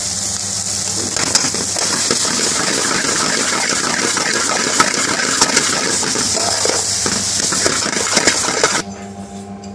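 Aubergine bhaji frying in a hot metal pan, hissing as it is tossed and stirred, with a metal spoon scraping and clinking against the pan over a steady low hum. The frying and clatter stop abruptly about nine seconds in.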